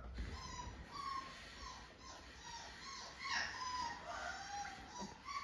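Four-week-old yellow Labrador retriever puppy whining and whimpering in a string of short, high-pitched cries, a few longer and falling in pitch near the middle.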